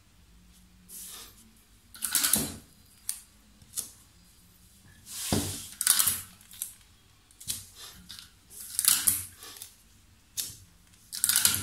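Paper pattern pieces rustling and sliding across a table as they are moved and folded by hand. A dozen or so short, irregular rustles are mixed with a few light taps.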